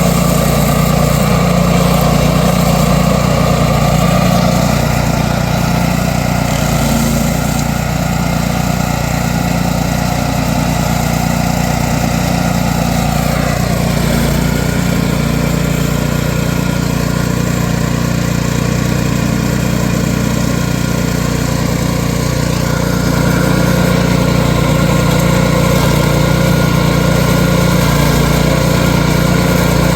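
Stump grinder's 13.5 hp Briggs and Stratton petrol engine running steadily. Its note drops about halfway through, and it grows a little louder later on.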